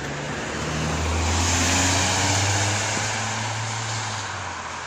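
A car driving past, growing louder to a peak about two seconds in and then fading away.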